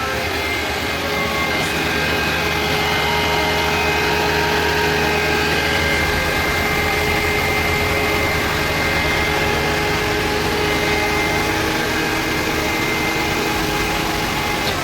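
Old Daihatsu Terios engine idling: a steady hum with a thin high whine over it.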